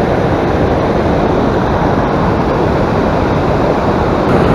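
A steady, loud rushing noise with no distinct tone or separate events.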